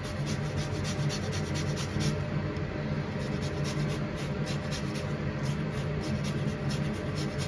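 Lemon peel being grated for zest: quick, repeated scraping strokes of the lemon across a grater.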